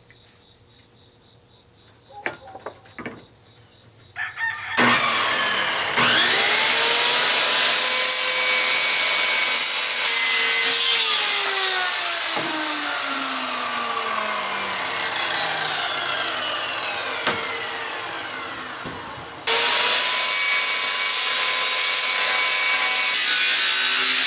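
Handheld circular saw cutting through a sheet of plywood. After a few light clicks, the saw spins up about five seconds in and cuts steadily, its whine slowly dropping in pitch as it works through the wood. It stops briefly about five seconds before the end, then starts again and keeps cutting.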